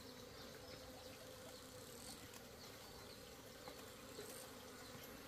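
Honeybees buzzing faintly and steadily around their hive.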